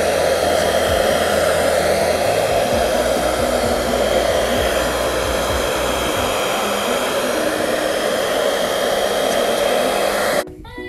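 Hand-held hair dryer blowing steadily, drying the lace-wig glue along the hairline, then cut off suddenly near the end.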